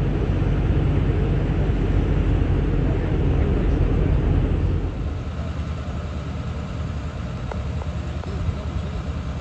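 Low, steady rumble of heavy vehicle noise, loud for the first half and dropping to a lower level about five seconds in.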